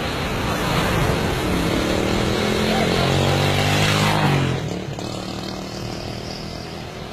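Street traffic noise, with a motor vehicle engine running close by. Its note swells for about three seconds, then cuts off about four and a half seconds in, leaving quieter traffic.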